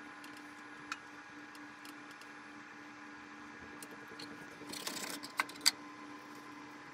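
Quiet kitchen with a steady low hum, over which hands working dough over a ceramic plate make a light click about a second in, then a short rustle and two sharp clicks about five seconds in.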